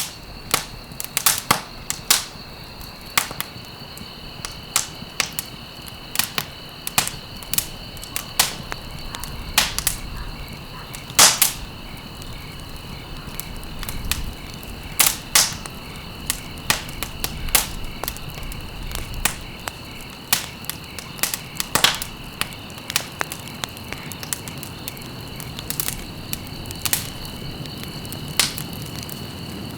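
Wood fire crackling, with irregular sharp pops several times a second and a few louder snaps, over a soft steady rushing of the flames. A steady high-pitched trill runs underneath.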